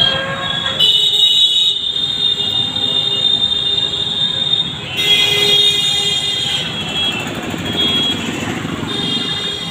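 Busy street traffic: motorcycles and auto-rickshaws running and passing, with high-pitched horns honking in long stretches, about a second in and again around five seconds and near the end.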